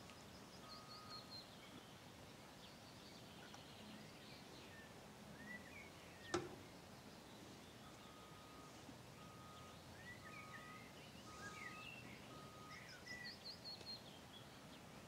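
Near silence with faint birdsong: short chirping phrases near the start and again near the end, a faint, evenly repeated short tone, and a single sharp click a little over six seconds in.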